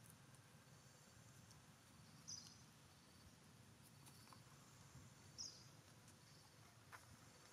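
Near silence: faint outdoor background noise with two brief high chirps, about two and five seconds in.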